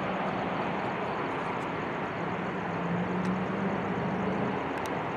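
Jet airliner engine noise: a steady roar, with a low hum that swells about two seconds in and fades near the end.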